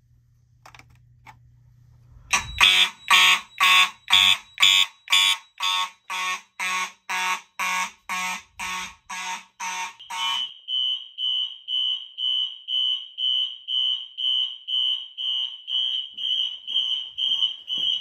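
Fire alarm system in alarm. After a faint low hum, horns start about two seconds in, sounding together in even pulses about twice a second. About ten seconds in the harsher horn sound stops and a higher electronic tone carries on pulsing at the same rate.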